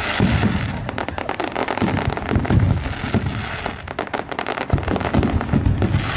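Aerial fireworks going off continuously: a dense, rapid crackling of many small reports over repeated deeper booms of shell bursts.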